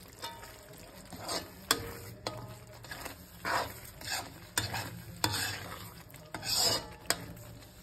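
A steel spoon stirring thick, simmering gravy in a metal kadai. It scrapes around the pan in a few longer sweeps, with sharp clinks of metal on metal between them.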